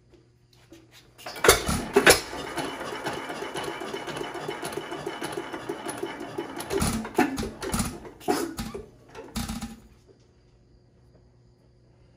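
1923 Fairbanks Morse 3 hp Z hit-and-miss engine, with buzz-coil ignition, firing twice with loud bangs, clattering quickly as its flywheels spin, firing a few more scattered times and then dying out about ten seconds in. It starts but won't keep running, which the owner traced to a weak spring on the pushrod blocking lever that let the lever re-engage the pushrod notch after a hit.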